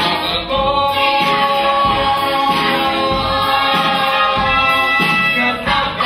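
Musical-theatre song from a live stage show: a chorus of voices with accompaniment holding one long chord, which changes near the end.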